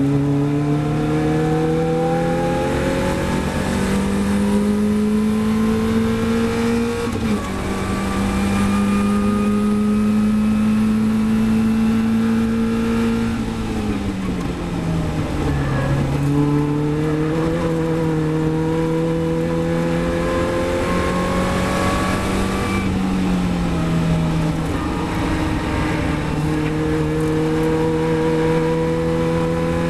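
Caterham Supersports race car's four-cylinder engine heard from the open cockpit under full racing load, over wind and road noise. The pitch climbs and drops at a gear change about 7 seconds in, holds high down the straight, and falls around the middle as the car brakes and downshifts. It then climbs again, with a short lift a few seconds before the end.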